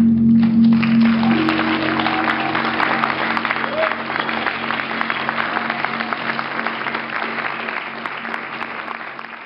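Audience applause breaks out about half a second in over a steady held musical drone, and both slowly fade toward the end.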